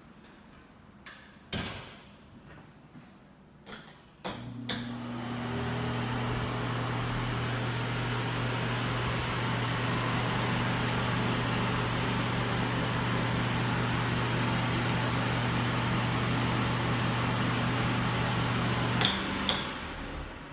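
Several clicks, then an exhaust fan starts with a click about four seconds in: a steady motor hum under an airy rush of moving air. It runs evenly until it cuts off with a couple of clicks near the end.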